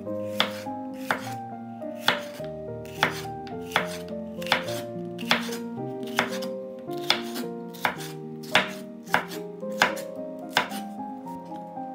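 Chef's knife slicing a red bell pepper into strips on a wooden cutting board: a crisp knock of the blade on the board about every three quarters of a second, over soft background music.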